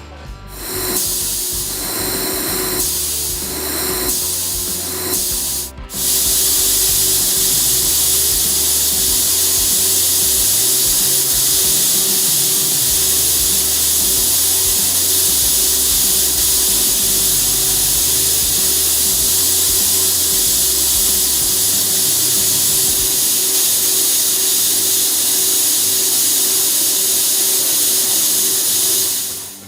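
Steady hiss of a handheld fiber laser welder (LightWELD 1500) running a wire-assisted weld on a stainless pipe flange. The hiss starts and stops a few times at first, breaks off for an instant about six seconds in, then runs unbroken. Background music plays underneath.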